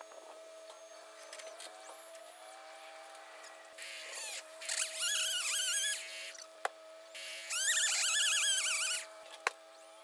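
A motor running in two bursts, one about four seconds in and one about seven and a half seconds in, its pitch wavering. A steady hum underlies both.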